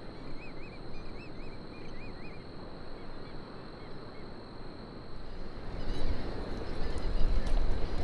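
Outdoor shoreline ambience: a steady rush of wind and water, with a bird calling a quick run of wavering notes during the first two seconds or so. From about six seconds in, wind buffets the microphone and the rush grows louder.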